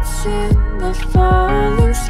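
Backing music: a song with a melody that bends in pitch, over deep bass-drum hits.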